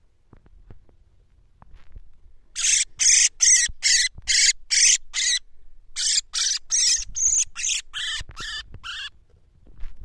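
A song thrush held in the hand giving harsh, screeching distress calls, about three a second, in two runs separated by a short pause, the second run fading.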